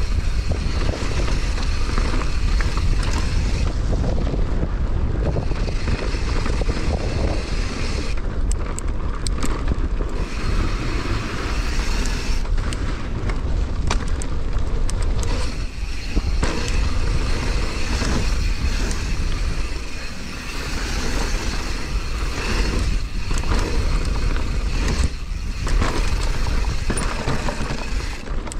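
Downhill mountain bike running fast down a dirt trail: wind rushing over the microphone and tyres rolling over the ground, with the chain and frame clattering over rough patches.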